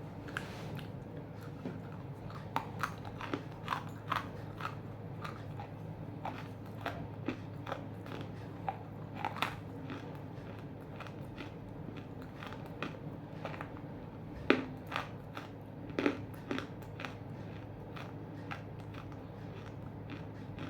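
Half-roasted edible clay chunks being bitten and crunched in the mouth, with irregular sharp crunches and chewing between them; the loudest two crunches come about 14 and 16 seconds in. A steady low hum runs underneath.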